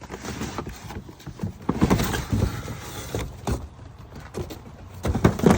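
Irregular knocks, thumps and rustling from a fuel tank and toolbox combo and its packaging being handled, with the loudest thumps about two seconds in and near the end.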